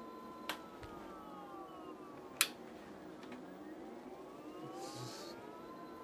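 Electric scooter motor whining as the wheel spins. Its pitch falls after a sharp click about half a second in, then rises again to a steady whine. A second, louder click comes about two and a half seconds in.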